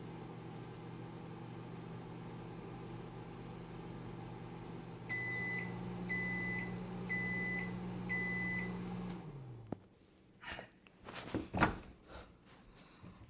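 Samsung microwave oven running with a steady hum, then four short, high beeps about a second apart marking the end of the heating cycle. The hum winds down and stops, followed by a few clicks and knocks.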